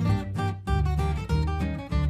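Music: acoustic guitar strumming over held low bass notes.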